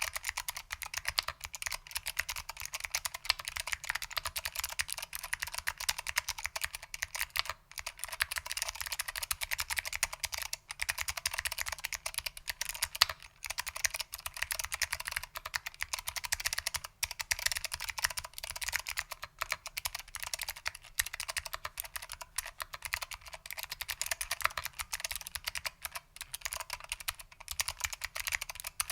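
Rapid, continuous typing on a Lunar AEK 65 mechanical keyboard with foam-damped SKCM Blue Alps switches, which are clicky, and ABS doubleshot keycaps: a dense stream of key clicks, broken by a few brief pauses.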